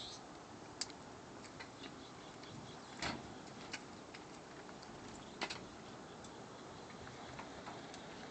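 Faint scattered clicks and knocks of mountain bikes being lifted into a pickup truck bed and set against each other, the two loudest about three seconds and five and a half seconds in, over a steady hiss.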